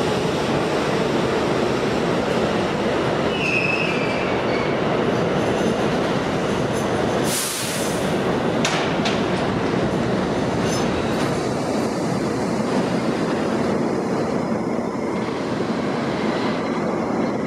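A Budd R32 subway train rolling out of the station, with the steady loud rumble and rattle of its steel wheels on the track. A short high wheel squeal comes about three to four seconds in, and a brief sharp burst of noise at about seven and a half seconds.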